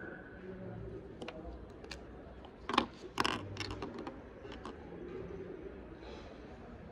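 Sharp plastic clicks and taps on a desk as a highlighter is uncapped and highlighters are set down, the two loudest close together about three seconds in, followed by a few lighter ticks.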